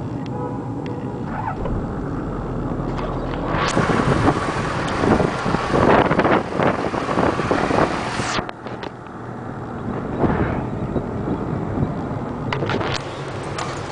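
Toyota Land Cruiser HDJ81's 4.2-litre straight-six turbo diesel idling steadily. From about four seconds in to about eight seconds in, a loud rush of wind noise on the microphone covers it.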